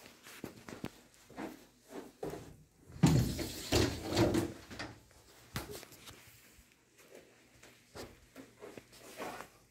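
Wooden built-in cupboard doors being opened and handled: scattered knocks and clicks, with a louder run of bumps about three to four seconds in.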